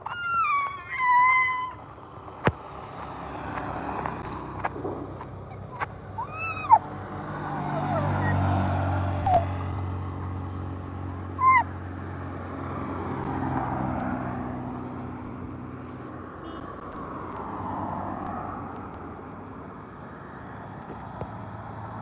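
Road traffic passing, a low engine hum swelling loudest about eight to nine seconds in and again more faintly later. Over it come short, high falling animal cries: two near the start, which are the loudest sounds, and single short ones about six and eleven seconds in.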